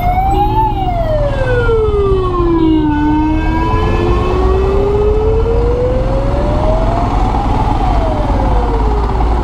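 Ambulance siren on a slow wail, its pitch falling for a couple of seconds, climbing for about five, then falling again near the end, over the low rumble of traffic.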